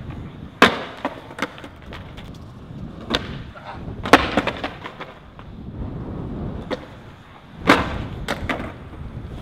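Skateboard on concrete: the deck and wheels hitting the ground in a series of sharp clacks and slaps, with wheels rolling in between, as a skater bails a stair-set jump. The loudest impacts come about four seconds in and near the end.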